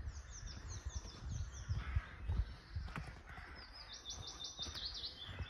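Songbirds singing in woodland: a run of quick falling notes in the first second or so, then a fast trill of repeated high notes about four seconds in. Soft thuds of a walker's footsteps on a dirt path lie underneath.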